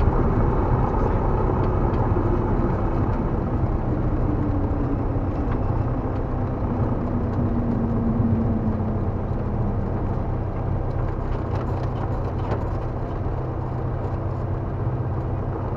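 Light airplane's engine and propeller droning steadily, heard from inside the cabin, with a tone that slowly falls in pitch over the first nine seconds or so.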